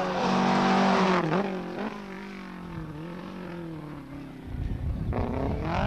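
Rally car engine running hard at high revs, its pitch dipping briefly just after a second in, then holding steadier and quieter as the car pulls away. Near the end a louder engine rumble builds with rising revs.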